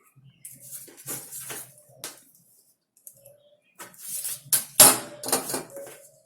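Scratchy strokes of a marking tool ruling straight lines along a ruler on a pattern, with sharp clicks and knocks of the ruler on the table, the loudest a bit before the end.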